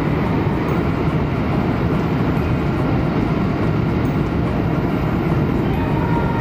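Cabin noise of an N700-series Shinkansen running at speed, heard from inside the Green Car: a steady low rumble and rush with no breaks. A faint steady high whine joins near the end.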